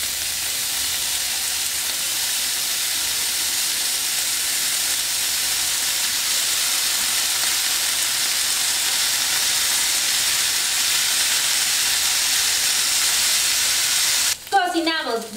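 Cocktail sausages sizzling in a frying pan in oil and seasoning sauces as lime juice is squeezed over them: a steady hiss that stops suddenly near the end.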